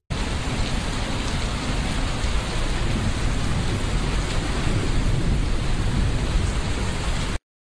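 Steady heavy rain with a deep rumble underneath, like a thunderstorm, starting suddenly and cutting off abruptly.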